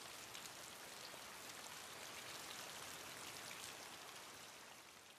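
Faint, steady patter of rain falling on the surface of a river, fading out near the end.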